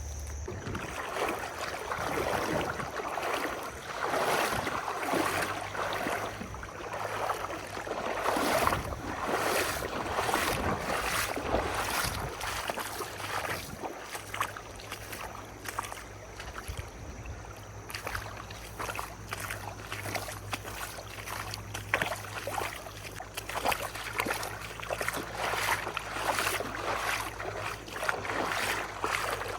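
Water sloshing and splashing in a shallow river, with uneven swishes that come and go, and wind buffeting the microphone.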